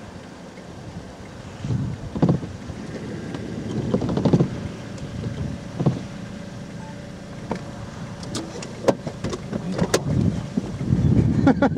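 Car running, heard from inside the cabin: a steady low hum with scattered knocks and clicks, and a quick rhythmic pulsing near the end.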